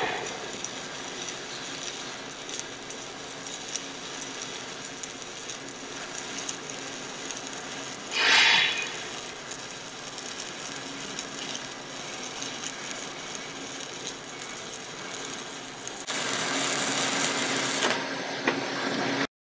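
Stick (SMAW) arc welding with a 3/32 in. 7018 electrode, running a horizontal cap pass: a steady crackling sizzle from the arc. There is a brief louder burst about eight seconds in, the crackle gets louder and harsher for the last few seconds, and then it cuts off suddenly.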